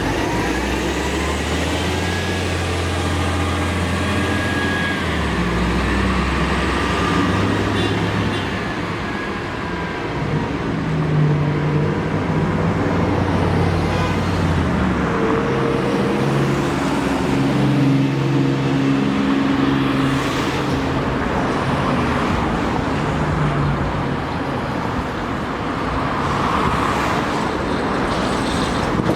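Steady urban road traffic: cars and heavier vehicles running and passing, with a deep engine hum that shifts in pitch, strongest in the first few seconds.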